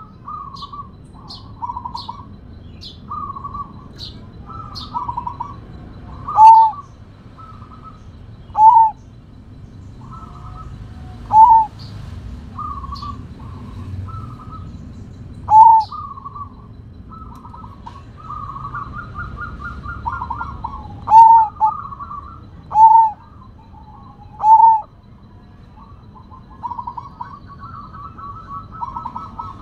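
Caged zebra dove (Sumbawa perkutut) cooing. About seven loud, clear notes a few seconds apart stand out, with softer, rolling, trilled coos between them.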